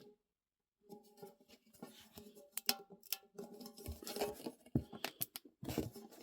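Hands working at a small metal gift tin and its packaging: irregular rustling with a string of sharp clicks and taps, busiest in the middle and latter part.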